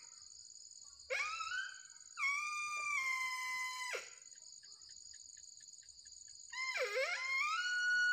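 A handmade mouth-blown deer caller for barking deer and sambar gives three long whistling, wail-like calls. The first, about a second in, rises and then holds. The second, longer one holds and sags slightly. Near the end a third swoops down and back up into a held tone. A steady insect drone runs underneath, with faint regular chirping between the calls.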